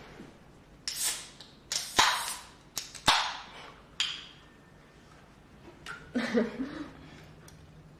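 Aluminium drink cans pulled open by their ring-pulls: sharp clicks, each followed by a fading hiss of escaping gas, several times over a few seconds. A short, lower sound comes after, near the end.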